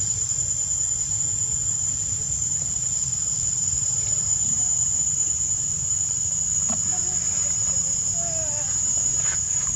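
Steady high-pitched drone of an insect chorus, with a low steady rumble beneath it and a few faint short sliding calls near the end.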